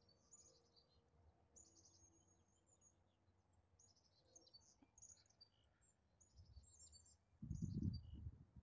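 Faint birds chirping in short, repeated high phrases, with a brief low rumble near the end.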